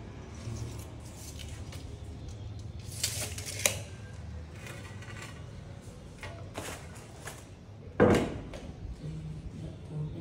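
Scattered knocks, taps and scrapes of hard objects, the loudest a single knock about eight seconds in, over a low steady hum.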